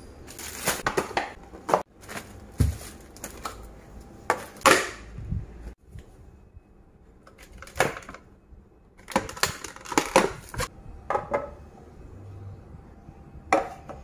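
Plastic grocery packaging rustling and crinkling as produce is handled, with plastic containers clicking and knocking on the countertop in irregular bursts.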